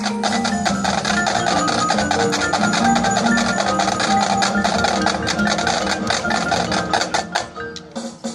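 Marching band playing: held low notes under fast, even percussion strokes, with the front ensemble's mallet keyboards playing a stepping melodic line. The music breaks off near the end.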